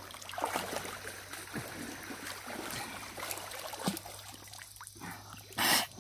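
River water splashing and trickling as people wade and move through it, with scattered small splashes and a brief louder rush just before the end.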